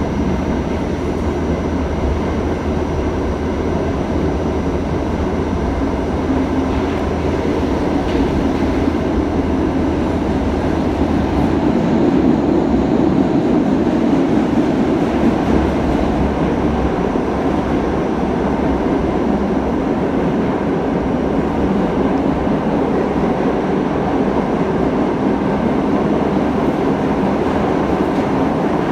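Interior of an R68A New York City subway car running through a tunnel: a steady, loud rumble of wheels on rails. It gets a little louder about twelve seconds in.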